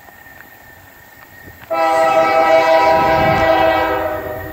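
Freight locomotive's air horn sounding one long blast. It comes in suddenly about two seconds in and fades away near the end, over a low rumble.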